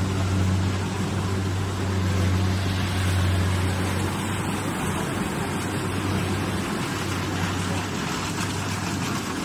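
Rice combine harvester's engine running steadily as it works the paddy, a low drone that weakens for about two seconds midway and then comes back.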